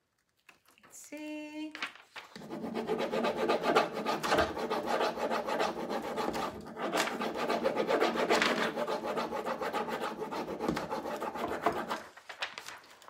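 Rub-on decor transfer being burnished onto a painted wooden bench panel, rubbed firmly through its plastic carrier sheet with quick back-and-forth strokes. The rubbing starts about two seconds in and stops about a second before the end.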